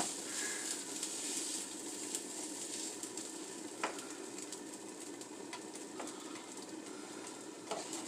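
Potatoes and mushrooms sizzling in a pan, with a few light clicks of a utensil against the pan.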